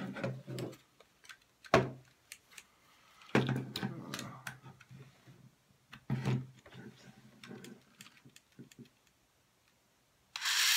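Clicks and rattles of a plastic RC transmitter and a toy RC motorcycle being handled and switched on while pairing, in several short bursts. Near the end the motorcycle's built-in gyroscope starts suddenly with a loud, steady whirr.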